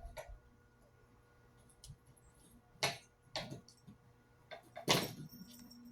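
A fidget spinner being batted around by a kitten, giving scattered sharp clacks: one a little under three seconds in, two more just after, and the loudest near the end.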